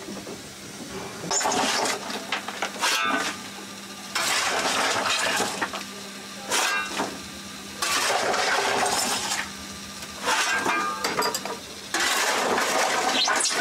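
A steel shovel working coal into the firebox of a steam locomotive: about seven rough scrapes and clatters of coal lumps, with a steady low hum underneath.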